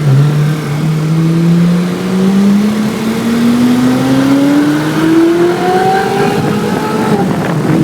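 Ferrari 458 Italia's V8 with an IPE aftermarket exhaust accelerating, its note climbing steadily for about seven seconds and then easing off near the end.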